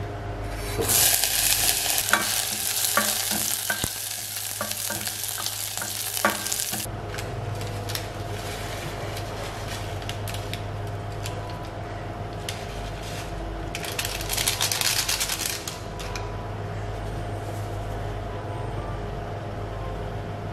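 A cleaver scraping chopped onion off a wooden cutting board into a pot of hot broth: loud hissing with scattered clicks for about six seconds, then it cuts off suddenly. A second, shorter hiss comes about two-thirds of the way in, and a steady low hum runs underneath.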